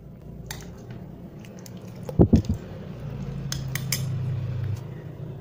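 Metal spoon clinking and stirring in a bowl of kolak, a few light clinks. There is a low thump a little after two seconds in and a steady low hum from about three seconds on.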